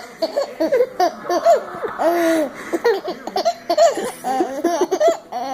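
A baby laughing: a run of short giggles and belly laughs, one after another with brief pauses.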